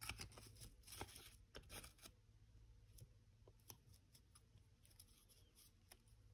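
Faint crinkling and crackling of folded 80 gsm origami paper being pinched and shaped by fingers: a cluster of small crackles in the first couple of seconds, then sparser ones.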